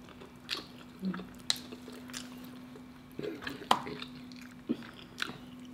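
Fried chicken being chewed close to the microphone: scattered wet mouth clicks and smacks, over a faint steady low hum.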